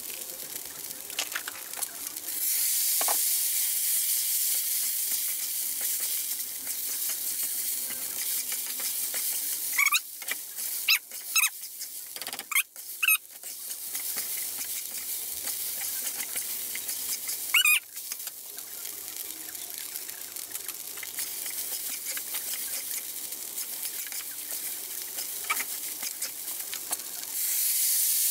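Glutinous rice and Chinese sausage sizzling in a steel wok as a metal spatula stirs and tosses it; the sizzle grows louder about two seconds in. Sharp scrapes of the spatula against the wok come in a cluster about ten seconds in and once more near eighteen seconds.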